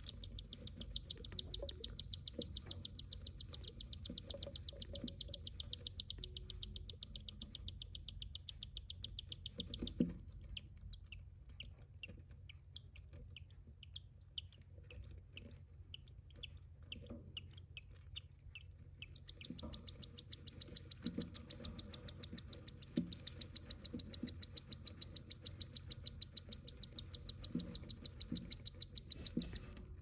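Cockatiel chicks begging while a parent feeds them: a rapid, high-pitched pulsing chirr. It breaks off about a third of the way in into scattered single cheeps, then starts up again, louder, a little after the middle.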